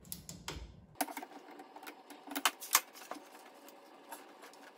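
Clicks, light knocks and a few sharp snaps of coolant hoses and their fittings being worked loose by hand in a car's engine bay, the loudest snaps about two and a half seconds in.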